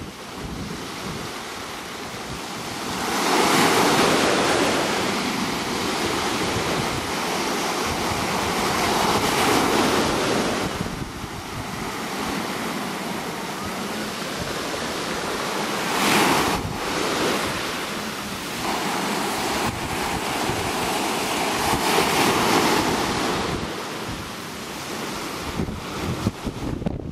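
Small sea waves breaking and washing up a pebble beach, the surf swelling and falling back about every six seconds. Wind buffets the microphone underneath.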